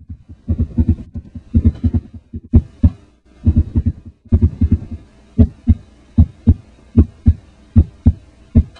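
Heartbeat sound effect: loud, low, deep thumps, crowded and fast over the first half, then settling into an even double beat, a pair a little more than once a second.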